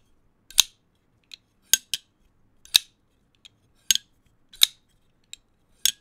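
Large Eafengrow frame-lock folding knife on ceramic bearings being flipped open and shut: a string of sharp metallic snaps and clicks as the blade hits lockup and the detent, about seven loud ones roughly a second apart, with fainter clicks between.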